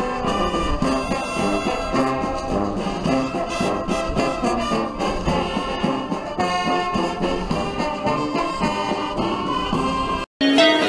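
Brass band playing a march. About ten seconds in it cuts off suddenly and, after a moment of silence, different music starts.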